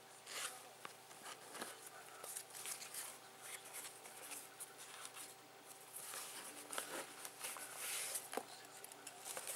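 Cardboard box and its paper packaging being handled and opened: faint, irregular rustling and scraping with a few light clicks, busier in the second half as a case is drawn out of the box.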